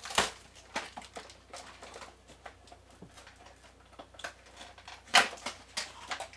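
Handling sounds from unpacking a plastic RC toy truck: irregular clicks and knocks of plastic and packaging being moved, the loudest a sharp knock about five seconds in.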